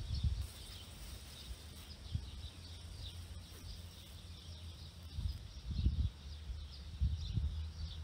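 Wind rumbling on the microphone, gusting stronger toward the end, with faint bird chirps.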